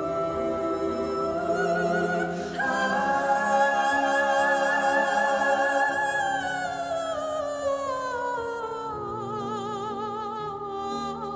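Ballad from a song recording: a solo soprano voice sings long wordless held notes with vibrato, stepping up about two and a half seconds in, then gliding slowly down in pitch over a soft accompaniment.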